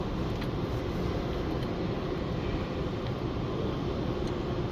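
Steady background noise of a repair shop: an even low rumble and hiss with no distinct knocks or events.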